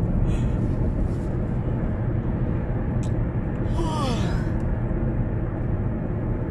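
Steady road and engine rumble inside a moving car's cabin. About four seconds in, a brief vocal sound falls in pitch.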